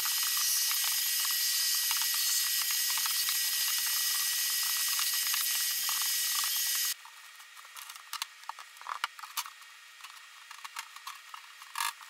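Vacuum cleaner running steadily with a high hiss as its hose sucks out the inside of a plastic blast cabinet, switched off suddenly about seven seconds in. After that come scattered light clicks and knocks of parts being handled.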